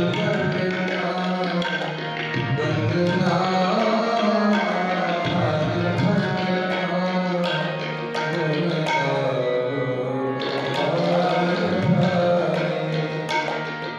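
Tabla and harmonium playing together: quick, crisp tabla strokes over the harmonium's held chords.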